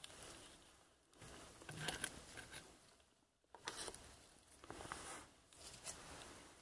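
Faint, slow footsteps scuffing and crackling on a hard floor, about one step a second.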